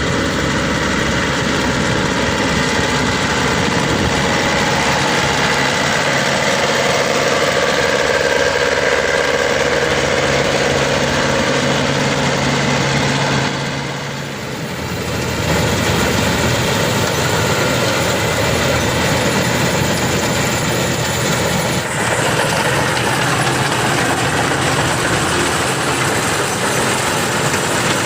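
GreenStar rice combine harvester running while harvesting, a loud, steady mechanical drone of engine and threshing machinery. It dips briefly about halfway through, then picks back up.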